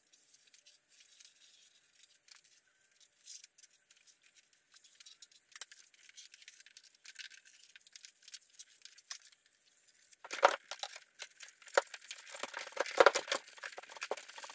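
Faint, scratchy crackling of silicone adhesive being squeezed from a tube in a bead along a plastic dash cover. About ten seconds in, louder rustling and a few sharp knocks from handling the cover take over.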